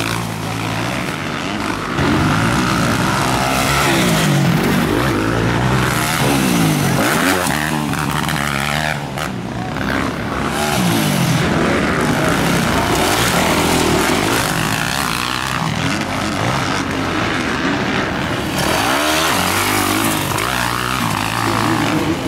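Several motocross dirt bikes racing past, their engines revving up and falling back again and again as the riders work the throttle, often overlapping. Loud throughout.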